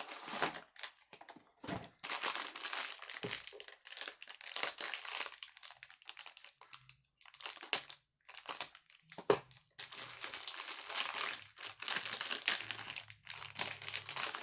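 Funko Mystery Minis blind box and the air-filled foil bag inside being opened by hand: crinkling and tearing in a series of bursts with short pauses.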